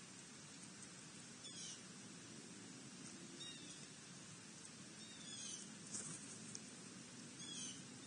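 Faint, high bird calls: four short, downward-sliding calls about two seconds apart, with a sharp tick a little past the middle.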